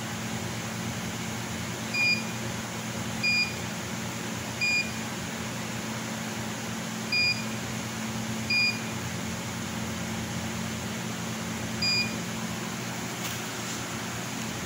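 Button-press beeps from a CNC laser cutter's controller keypad: six short, high, identical beeps at irregular intervals, one per key press, over a steady low hum.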